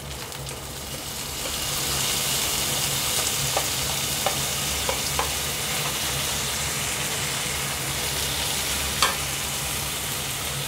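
Chopped tomatoes and coriander leaves sizzling as they hit hot oil in a kadai with fried onions and ginger-garlic paste. The sizzle swells a second or two in and holds steady, with a few light taps of a wooden spatula and one sharper click a little before the end.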